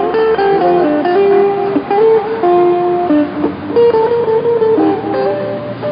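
Guitar music, a melody of plucked notes moving quickly from one pitch to the next, a little quieter near the end.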